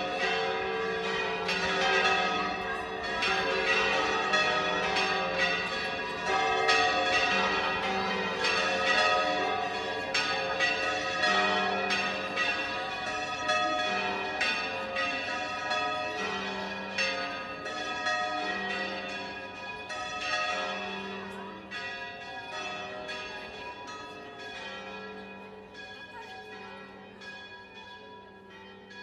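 Murcia Cathedral's bells pealing: several bells of different pitches struck over and over, their strokes overlapping and ringing on. The sound fades out gradually over the last ten seconds or so.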